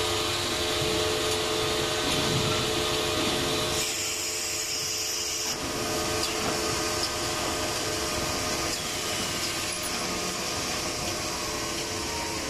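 Automatic 25 kg powder packaging line running: a steady hum of motors and conveyors with several constant whining tones. About four seconds in, a high hiss briefly takes over for a second and a half, then the steady running resumes.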